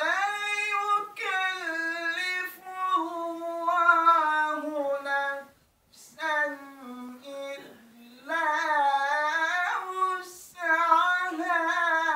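A man's unaccompanied voice reciting the Quran in the melodic tilawah style. He holds long phrases with ornamented turns of pitch, broken by short pauses about six seconds in and again near ten seconds.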